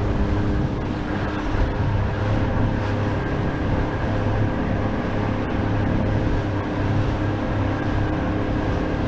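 A motor vehicle's engine running steadily at an even speed, a constant drone with no change in pitch.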